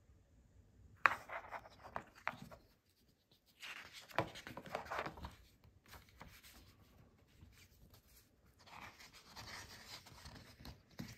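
Pages of a paper booklet being flipped and handled by hand: a sharp tap about a second in, then soft rustling sweeps of paper.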